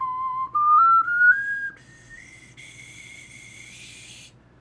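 3D-printed plastic 12-hole soprano ocarina played up a scale, note by note in clear steps. The lower notes sound clear and full; the top notes, from about two seconds in, come out much quieter and airy with a lot of breath hiss, the sign of a print that cannot sound its high register well. The playing stops shortly before the end.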